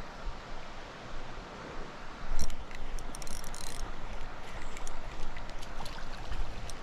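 Mountain stream water running steadily, with a sharp click about two and a half seconds in, then a short hissy rattle and a few light clicks from the fishing tackle.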